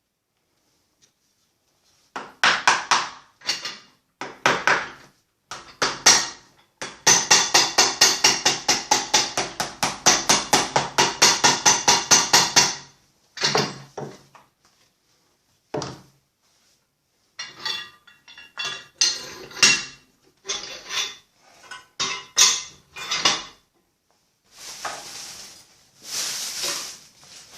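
Hammer blows on a homemade cobbler's anvil, each strike ringing with a metallic tone. A fast, even run of about three blows a second fills the middle, with scattered taps before and after, and a couple of seconds of hissing noise near the end.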